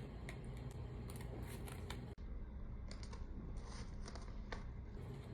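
Faint scattered clicks and light rustling of paper being handled, a candy's wrapper being worked at.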